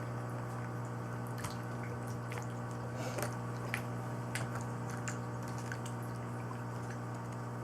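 Homemade glue-and-borax slime squishing and crackling with faint wet clicks as it is handled and scooped into a bowl by hand, over a steady low hum.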